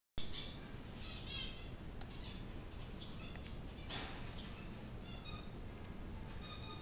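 Short high chirping calls, each with several tones stacked together, repeating roughly once a second, over a few sharp clicks of a cat crunching dry treats.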